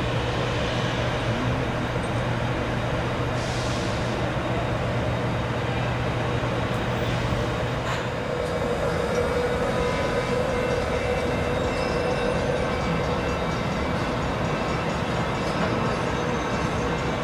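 San Diego Trolley Siemens light-rail cars running on street track: a steady rumble with a low hum that stops about halfway through, and a higher steady whine in the second half.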